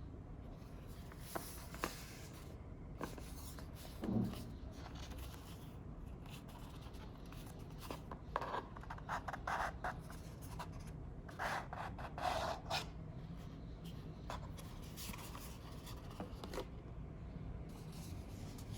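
Hands handling packaging: irregular rubbing and scraping of paper or cardboard, with scattered small clicks and a few short bursts of rustling.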